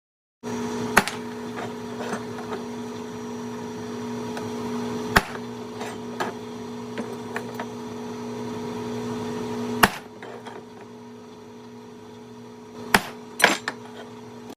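Steady electrical hum from workshop equipment that stops about two-thirds of the way through, with a handful of sharp metal knocks and clanks from work on a steel frame, two of them close together near the end.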